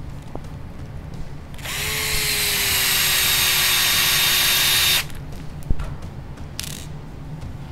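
Small electric power screwdriver running steadily for about three seconds as it drives a differential cup screw into an RC buggy diff, then a brief second blip of the driver.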